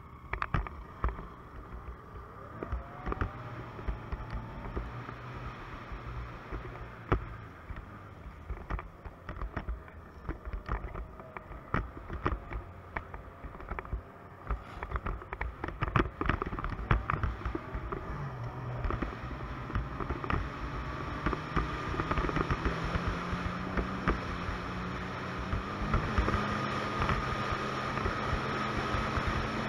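Ski-Doo Expedition 900 ACE snowmobile's three-cylinder four-stroke engine running under way. Its note climbs about two-thirds of the way through as the sled speeds up, then holds steady at cruising speed. Frequent thumps in the first half are bumps from the ride, heard over wind rush.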